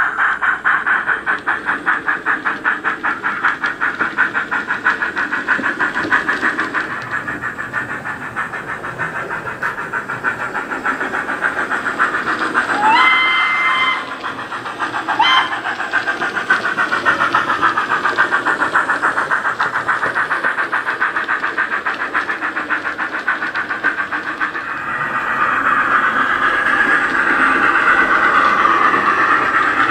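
Steam locomotive sound from a LokSound 5 micro DCC decoder in a model USA tank engine, played through its small speaker: a steady rhythmic exhaust beat. About 13 seconds in the whistle blows for about a second, followed by a short second toot. The exhaust beat grows louder again near the end.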